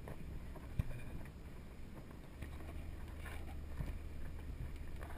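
Hummer H1 driving off-road: a steady low engine and drivetrain rumble with wind noise on the microphone, louder about halfway through, and a single sharp knock about a second in.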